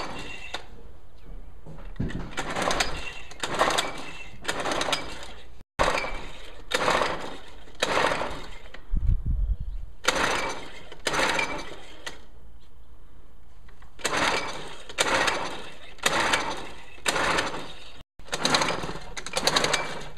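Nissan 3.5 hp two-stroke outboard being cranked by its pull-cord recoil starter. Each pull gives a short rasping burst; the pulls come in quick groups of three to five with pauses between, and the engine does not catch, which the owner puts down to a clogged carburetor.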